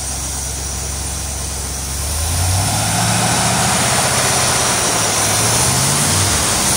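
1973 Corvette Stingray's Chevrolet V8 idling, then about two seconds in the throttle is opened by hand at the carburetor and the engine rises to higher revs, holding there with its speed wavering up and down. The engine is running again after sitting for 25 years.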